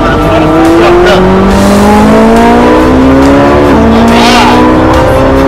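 Sports car engine heard from inside the cabin, accelerating hard with a steadily rising pitch, then dropping sharply at an upshift about two thirds of the way in before climbing again.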